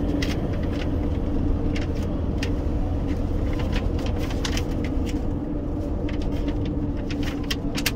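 Steady road and engine rumble of a car driving, heard from inside the cabin, with scattered light clicks.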